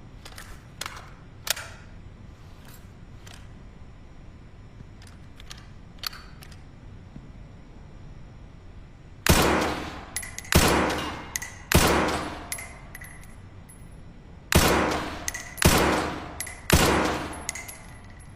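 Springfield M1A rifle fired through a cloth-wrapped suppressor: six sharp shots, each with a short decaying tail, in two strings of three about a second apart. A few faint clicks come first.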